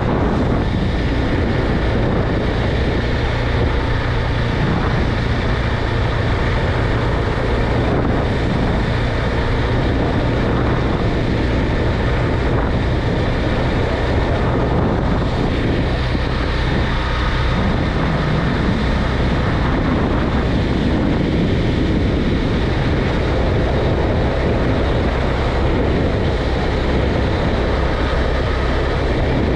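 KTM 390 Duke's single-cylinder engine running steadily while the bike is ridden, with wind noise buffeting the microphone.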